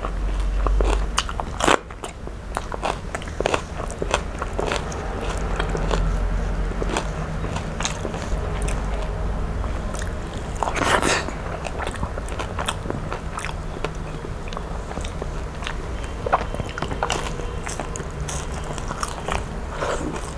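Close-miked eating: a person chewing and biting into crisp fried fish and rice, with many short wet mouth clicks and crunches and one longer crunch about eleven seconds in.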